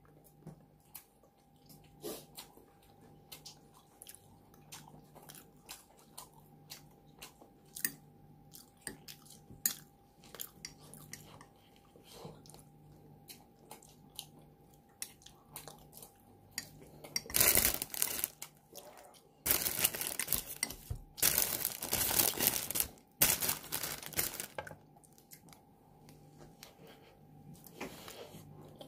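Close-up eating sounds: chewing with small wet mouth clicks, and a little past the middle four loud bursts of crunching from crusty toasted garlic baguette.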